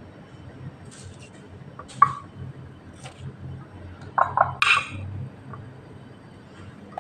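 A metal spoon clinking and knocking against a glass food container as avocado is scooped into a salad: one sharp clink about two seconds in, then a quick run of clinks and knocks a little past the middle.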